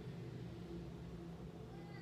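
Steady low hum, with a faint, short falling cry near the end.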